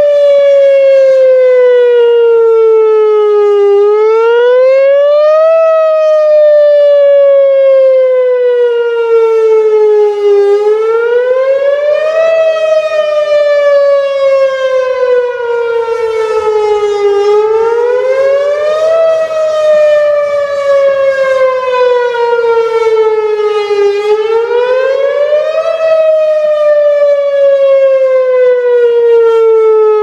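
Whelen Vortex R4 rotating electronic warning siren sounding its wail, the tornado-warning signal, in a drill test. The pitch climbs quickly for about two seconds, then falls slowly for about five, and this repeats about every seven seconds, with a bright stack of overtones above it.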